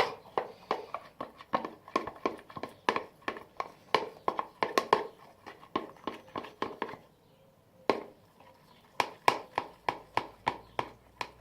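A utensil stirring a wet slime mixture of face wash, washing-up liquid and toothpaste, clicking and knocking against the sides of the container two or three times a second, with a short pause about two-thirds of the way through.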